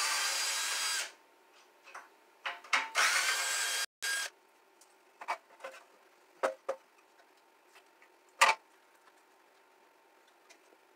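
Cordless drill backing out screws from a moped's body panels: two steady whining runs of about a second each, the second stopping about four seconds in, with a brief blip just after. Then scattered knocks and clacks of parts being handled, the sharpest about eight and a half seconds in.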